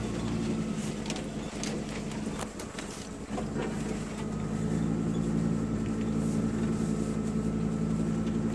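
Second-generation Dodge Ram pickup's engine running steadily while it drives off-road, heard from inside the cab as a low drone. The drone eases off around the middle and picks up again after about four seconds. Scattered light clicks and scrapes come from brush brushing against the truck.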